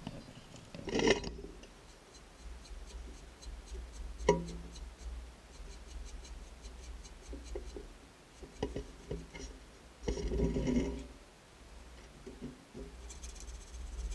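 Hand work on a plastic guitar binding strip: tools and parts handled with a few knocks and clicks, and a stretch of rubbing. Near the end come quick rasping strokes of a hand file on the binding at the fretboard end, over a low steady hum.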